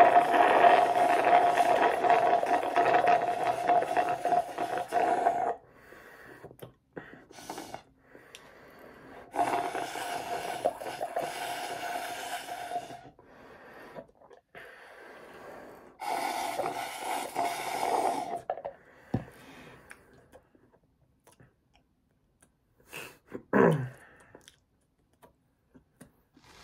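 A person slurping strawberry milkshake straight from the cup in three long, loud draws, with quieter breaths between them. About three seconds before the end there is a brief sound that falls sharply in pitch.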